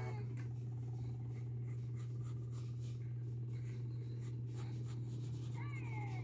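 Graphite pencil sketching on paper: a run of quick, short strokes, over a steady low hum.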